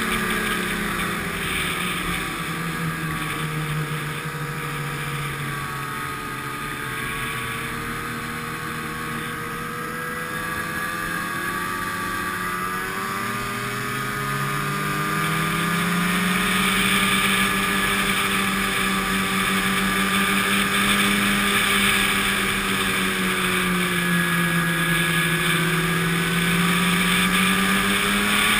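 Snowmobile engine running as it travels along the trail. The engine note drops a few seconds in, rises again about halfway through as it picks up speed, and gets louder toward the end.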